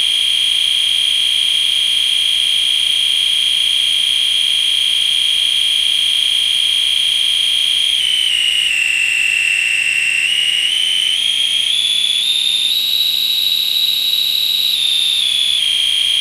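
A loud, shrill, steady high-pitched tone. About halfway through it dips lower in pitch, then climbs in steps to a higher pitch before settling back.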